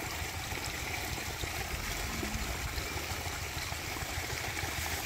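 Water running steadily from a hose as it floods an armadillo burrow, a continuous trickling rush.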